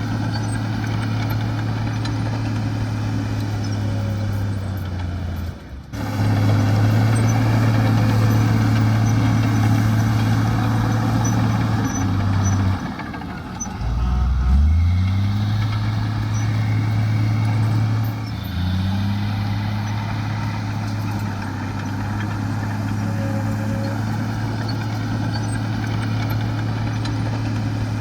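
Heavy diesel engine of earthmoving machinery running steadily under load. Halfway through its pitch drops and then climbs back up, as the engine bogs and revs again.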